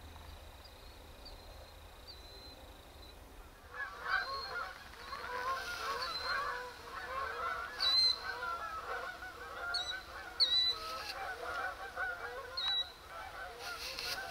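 A flock of geese honking in flight, many calls overlapping. The honking starts about four seconds in and carries on.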